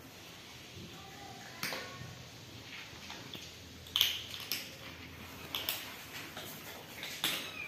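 Cats eating dry kibble from a plastic tray: several sharp clicks of kibble and tray, spaced irregularly, and a kitten's short meow.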